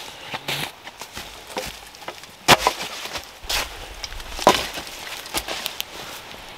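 Firewood branches knocking and clattering together as they are dropped onto a pile: a handful of sharp wooden knocks, the loudest about two and a half, three and a half and four and a half seconds in, with lighter clicks between.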